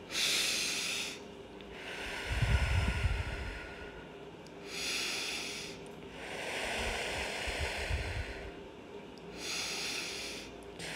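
A woman's slow, deep breathing while she holds a yoga backbend: several airy in-and-out breaths, a few of them with a low rumble.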